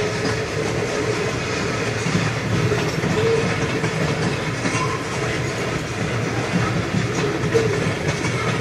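Freight train of tank cars rolling steadily past, its steel wheels running on the rails with an even, continuous noise.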